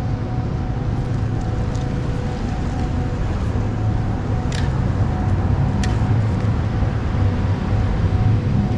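A steady low mechanical rumble with a constant hum over it, and two short high squeaks about halfway through.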